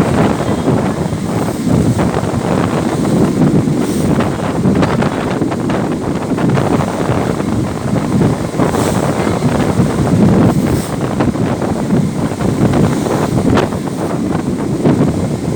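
Strong wind buffeting the microphone in a loud, continuous rumble, with the rapid irregular flapping of a shirt whipped by the gusts.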